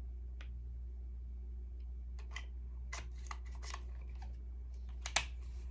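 Scattered small plastic clicks and taps from handling a camcorder as its lithium-ion battery is turned round and reseated and the battery cover is closed, with the sharpest click near the end, over a steady low hum.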